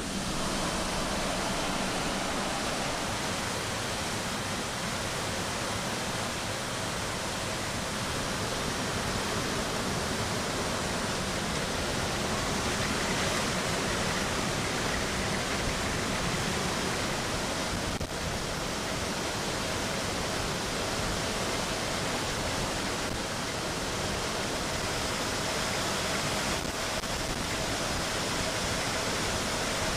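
Steady rushing noise of air and engines inside the cargo hold of a C-17 Globemaster flying with its rear cargo ramp open.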